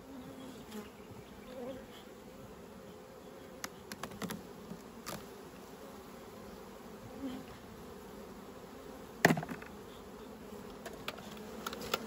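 Honeybees buzzing steadily around an opened hive, a droning hum. A few light clicks of hive equipment partway through and one sharper knock about nine seconds in.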